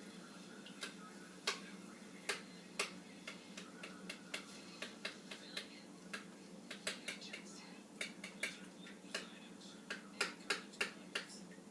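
A utensil clicking and tapping irregularly against a bowl while eggs, milk, cheese and butter are stirred together, the taps coming faster in quick runs later on. A faint steady hum lies underneath.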